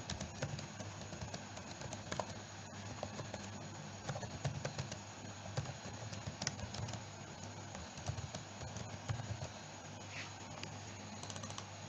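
Typing on a computer keyboard: an uneven run of light key clicks.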